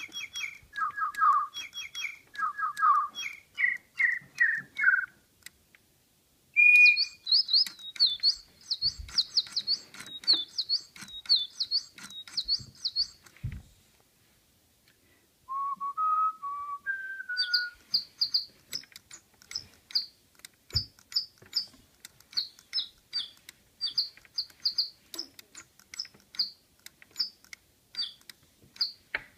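Spin Master DigiBird toy bird playing its electronic birdsong: phrases of quick tweets and chirps, the first ones lower, then higher and faster, with a pause of about two seconds near the middle.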